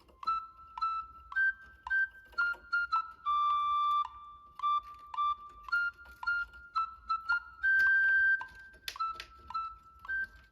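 Background music: a light, bouncy melody of short flute-like notes with sharp plucked attacks.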